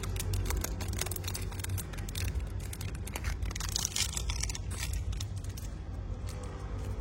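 Zippo lighter being handled close to the microphone: scattered small clicks and rubbing, with a brief brighter scrape about four seconds in.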